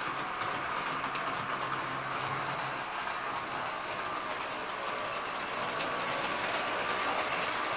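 S-gauge model train, an S-Helper Service diesel locomotive hauling freight cars, running on the layout track: a steady running rattle of wheels on rail and motor hum, with faint small clicks from the track. It grows slightly louder as the train comes closer.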